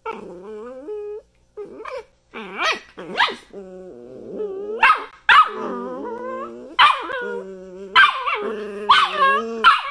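Two puppies, one a red dachshund, play-fighting: a near-continuous run of high-pitched growls broken by sharp yips and barks, about one a second from roughly two seconds in.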